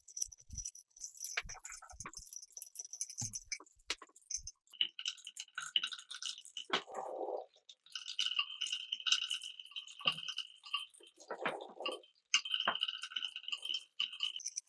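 Marbles rolling and clicking along a marble run's track pieces, with rattling, ringing rolls broken by sharp clicks. Twice a lower rumble comes in.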